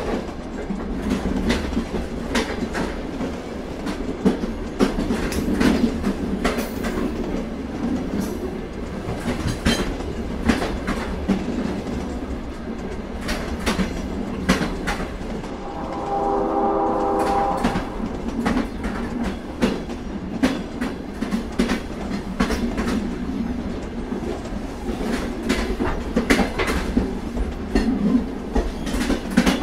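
Freight train cars rolling past, with a steady low rumble and the clickety-clack of wheels striking rail joints. A brief pitched tone sounds about halfway through.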